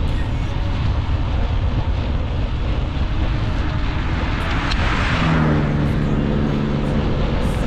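Steady wind rumble on the microphone of a rider on a moving bicycle. About five seconds in, a motor vehicle passes: a rushing noise swells and fades, with a steady engine hum lasting about two seconds.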